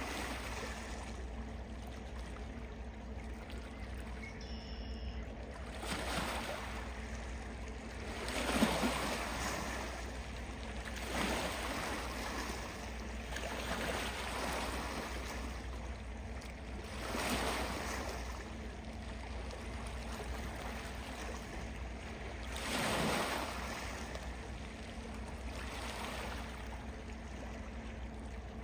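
Small waves lapping in soft swells every few seconds over a steady low hum, with a brief faint bird call about five seconds in.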